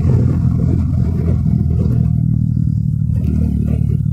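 A vehicle's engine running with a steady low drone while going downhill, with some uneven noise over it in the first two seconds.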